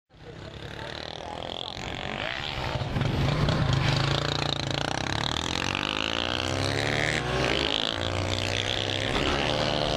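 Motorcycle engines running, fading in at the start. From about halfway through, one engine's note climbs steadily in pitch as the bike accelerates.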